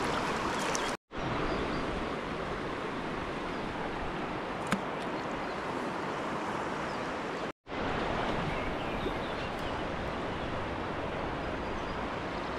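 River water rushing steadily past, an even hiss.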